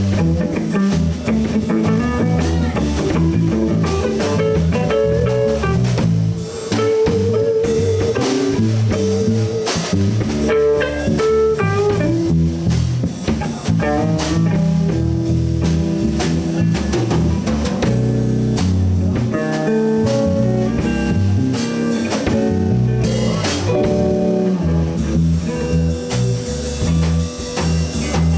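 Blues band playing an instrumental passage: guitar lines over bass guitar and a drum kit, loud and continuous.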